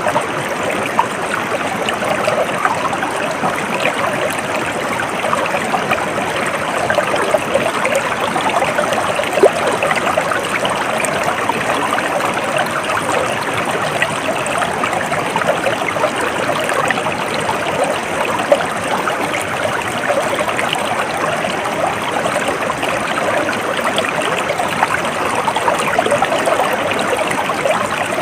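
A small stream flowing steadily, with trickling water.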